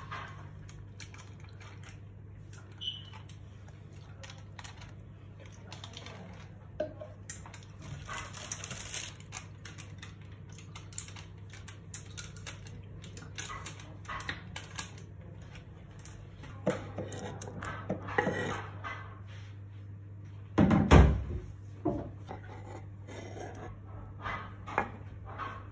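Kitchen handling sounds: scattered clicks and taps of a knife cutting strawberries on a wooden chopping board and of a glass bowl, over a steady low hum. A loud thump comes a little over twenty seconds in.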